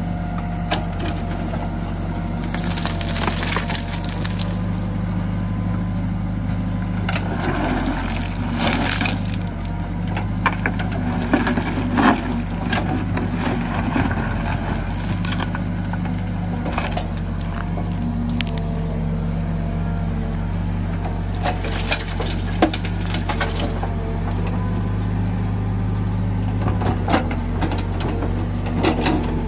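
Case 770 backhoe loader's diesel engine running steadily, its pitch shifting as the hydraulics work. Several times the bucket scrapes and crunches through stony soil.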